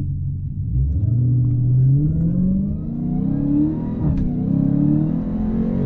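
2020 Dodge Challenger Hellcat Widebody's supercharged 6.2-litre Hemi V8 at full throttle from a standing start on its 717-horsepower red key. The engine note climbs steadily from about a second in, drops at an upshift about four seconds in, climbs again, and shifts once more near the end.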